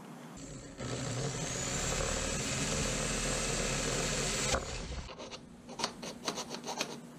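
Cordless drill running for about four seconds as it bores a small hole through a PVC pipe sleeve, then stopping. Light scratching and rubbing at the plastic follow near the end.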